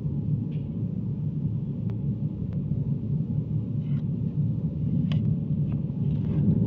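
A steady low machine rumble runs throughout, with a few light taps and knocks from hands and a wooden rammer working a sand-casting mould and its metal pattern plate.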